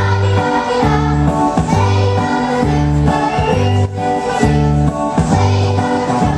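A song sung live into a microphone over a backing track with a steady, repeating bass line; a girl is singing.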